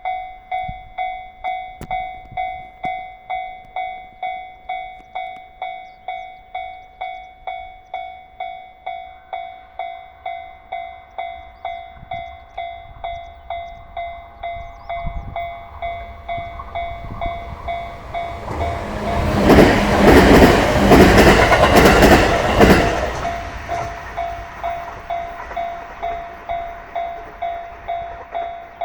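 Japanese level-crossing warning bell dinging steadily in an even, repeating rhythm while a JR 211 series electric multiple unit approaches, rushes past with wheel clatter over the rail joints, and fades away; the train is loudest a little past the middle and briefly drowns the bell, which keeps ringing after it has gone.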